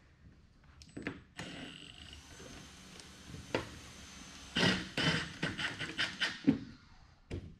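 Hand-tool work on bolts under a car's front end: a few faint clicks, then a quick run of sharp clicks and knocks, about four a second, lasting about two seconds, with one more near the end.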